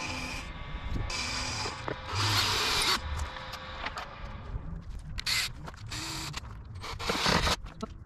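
Ryobi cordless drill running in short bursts of about a second, drilling into a plywood board. Between and after the bursts come sharp clicks and knocks from handling and clamping the board.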